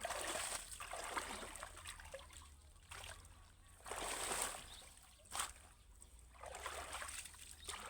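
Water splashing in five uneven surges, most about a second long, one very short.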